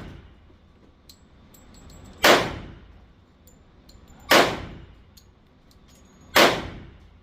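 Glock 21 .45 ACP pistol fired three times, about two seconds apart, each shot sharp with a short ringing tail.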